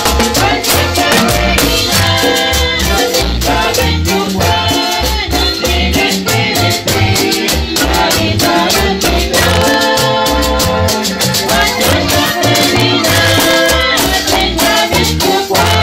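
Upbeat music with a pulsing bass beat, busy high percussion and sustained melodic lines.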